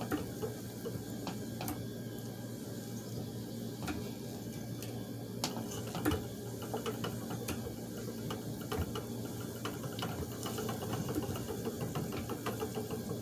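Treadle spinning wheel running steadily, its flyer and bobbin whirring on the drive cord, with scattered light clicks and ticks as wool is spun into yarn.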